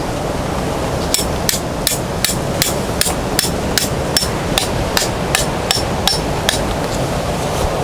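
Tent peg being hammered into the ground: about fifteen sharp, ringing blows at a steady two to three a second, starting about a second in and stopping a little over a second before the end, over wind noise.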